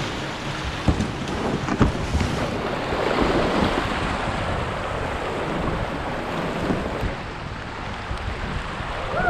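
Fast river water rushing and splashing around a whitewater kayak, heard from the boat, with wind on the microphone. A few sharp knocks in the first two seconds.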